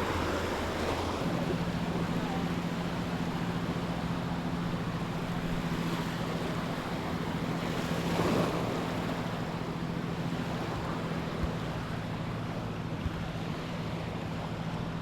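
Sea waves washing onto a beach, swelling near the start and again about eight seconds in, with wind noise on the microphone. A steady low motor hum runs underneath from about a second in.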